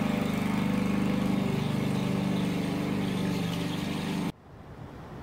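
Walk-behind gasoline lawn mower engine running steadily under load as it is pushed through grass. The sound cuts off abruptly near the end, leaving only quiet outdoor background.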